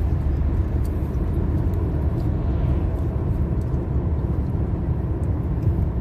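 Steady low rumble of a car driving at motorway speed, heard from inside the cabin.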